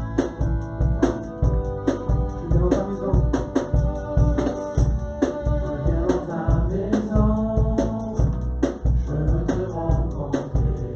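A song with a steady drum beat, heavy bass and a singing voice over it.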